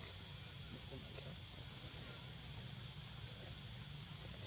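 Steady, high-pitched drone of a chorus of insects, unbroken throughout.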